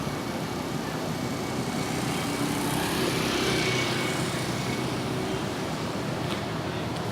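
Bus passing by on the road: engine and tyre noise that swells to a peak about halfway through and then eases off.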